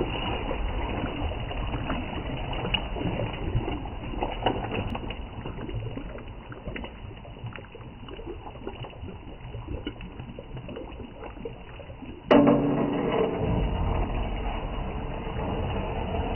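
Thick curry in an aluminium pot bubbling and sloshing as a metal ladle stirs it, with small clicks of the ladle against the pot over a steady low rumble. About twelve seconds in the sound turns suddenly louder.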